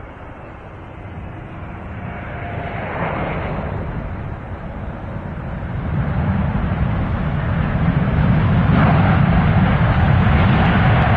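Airplane taking off: engine noise and a low rumble growing steadily louder over the first eight seconds, then holding at full power.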